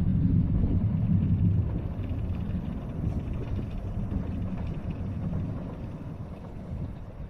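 A train on the Sanyo Main Line rumbling past and fading away as it draws off down the line.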